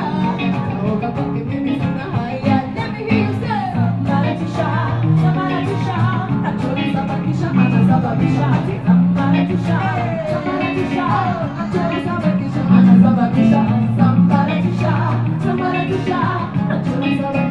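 Music with a voice singing over a steady beat.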